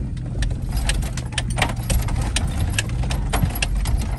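GMC Yukon rolling slowly over a rough, stony field, heard from inside the cab: a steady low rumble of engine and tyres, with frequent sharp clicks and rattles.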